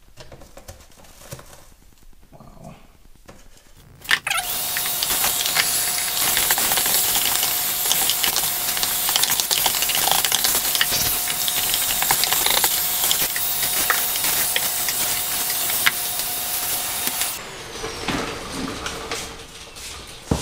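Vacuum cleaner switched on about four seconds in, running with a steady hiss and whine while it sucks debris out of a car's air filter housing, with small rattles and clicks of bits going up the hose. It switches off near the end and winds down with falling pitch.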